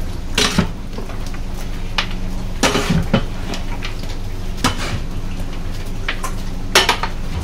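Long metal spatula and ladle knocking and scraping against a large aluminium cooking pot as gravy is stirred into a big batch of mutton curry, in irregular clanks over a low steady hum.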